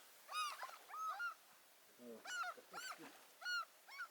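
Gulls calling over discarded fish guts: a quick series of short, high, arching cries, several overlapping.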